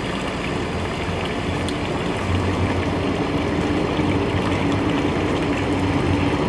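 Street ambience of water running into a stone fountain basin, with the hum of city trams moving past. A steady low hum grows louder about two seconds in.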